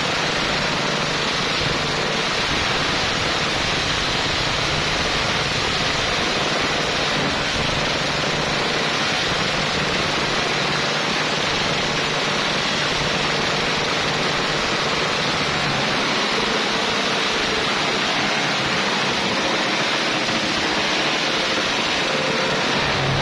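Suzuki Raider R150 motorcycle engine running through a loud aftermarket exhaust, heard as a steady, even roar-like rush with no change in revs.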